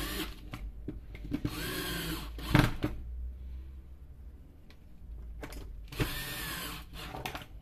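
Cordless drill/driver with a Phillips bit driving screws into the plastic housing of an electric chain sharpener: several short bursts of its motor whine, rising and falling in speed, with a sharp knock about two and a half seconds in.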